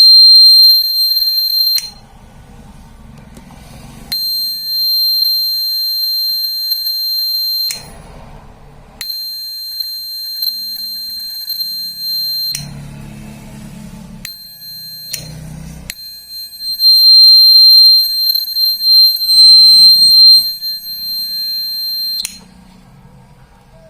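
Small battery-powered DC buzzer, wired as a homemade doorbell, sounding a steady high-pitched beep each time the switch is pressed: five presses of about two seconds, three and a half, three and a half, one, and then about six seconds.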